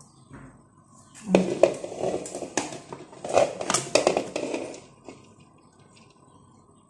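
Cooked rice tipped from a plastic container into a metal pot, with knocks and scrapes of the container against the pot, starting about a second in and stopping about five seconds in.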